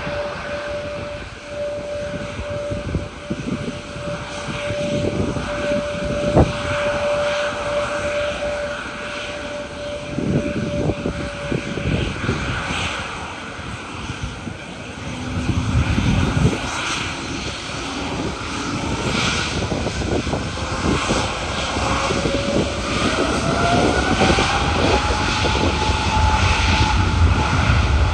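Twin jet engines of a Lufthansa Airbus A321neo on the runway. A steady whine dies away, then from about two-thirds of the way through the whine rises in pitch and holds high over a growing rumble as thrust comes up, typical of spool-up for the takeoff roll. Wind buffets the microphone throughout.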